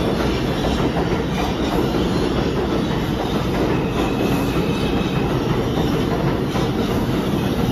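New York City subway train moving through the station, a loud steady rumble of wheels on rails.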